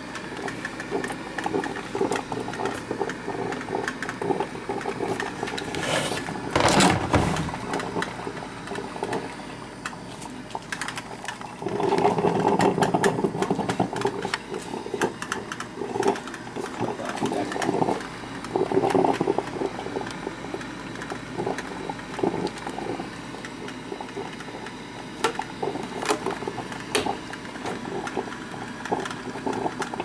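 Black & Decker TCM411 thermal carafe drip coffee maker brewing: an uneven run of gurgling and sputtering as the heater pushes hot water up to the brew basket, with a louder burst about seven seconds in.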